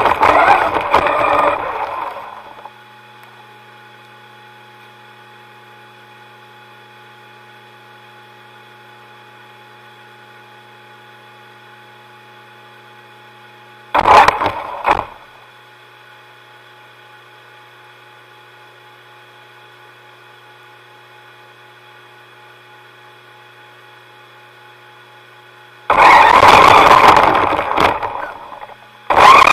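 Motor of a remote-controlled FPV model, heard through its onboard action camera. It runs up loud in three rushing bursts: one fading out in the first two seconds, a short one about halfway, and a longer one near the end. Between them there is only a steady faint whine of fixed tones.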